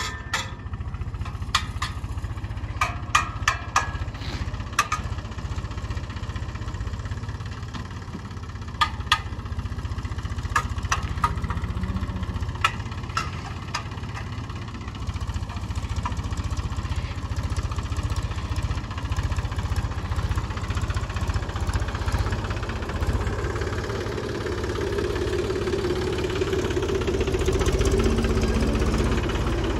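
Tractor's diesel engine running steadily as it pulls a seed drill across the field, louder in the last several seconds. A run of sharp clicks sounds over it in the first dozen seconds.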